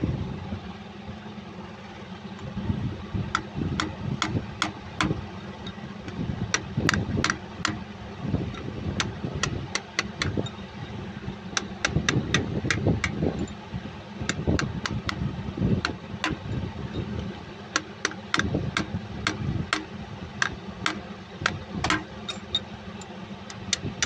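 Hammer striking a steel punch to drive the front oil seal of a Cummins KTA50 engine into its housing: a run of sharp metallic taps, irregular and a few a second, coming in clusters. A steady low hum runs underneath.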